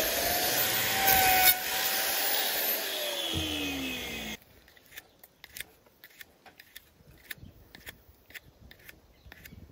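Angle grinder with a hoof-trimming disc working a cow's claw, then released so its whine falls steadily in pitch as the disc spins down. About four seconds in the noise cuts off abruptly, leaving faint scattered clicks as the claw is handled.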